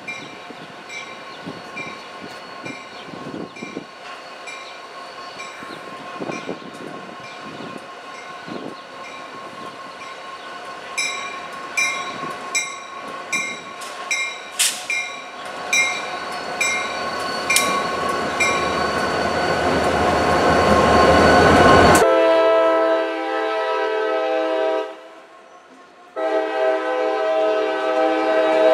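Freight train hauled by CSX GP40PH-2 diesel locomotives approaching and passing close, its noise building steadily over about twenty seconds while a bell dings about twice a second. Near the end the locomotive horn sounds a multi-note chord in two long blasts with a short gap between, the loudest sound here.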